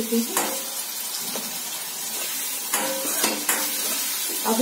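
Vegetables frying with a steady sizzle in a kadhai on a gas stove while a wooden spatula stirs them, knocking and scraping against the pan several times, most often about three seconds in.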